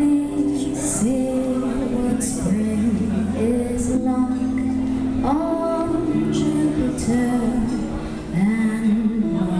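Live band playing a song, amplified through a PA: a woman sings the lead melody over sustained keyboard chords, guitars and drums with regular cymbal strokes.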